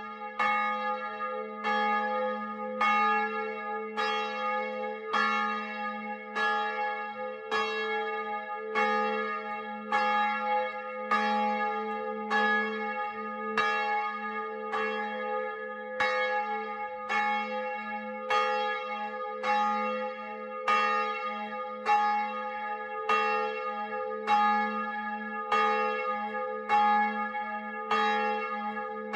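A single church bell tolling steadily, struck about once a second, each stroke ringing on over a constant low hum from the bell.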